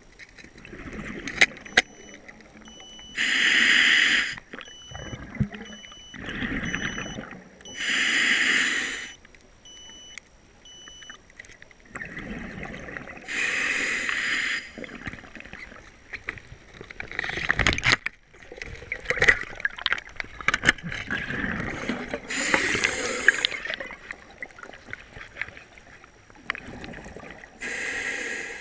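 Underwater bubbling in roughly one-second bursts every four to five seconds, with sharp clicks and knocks from a spear shaft being handled, heard through an underwater camera.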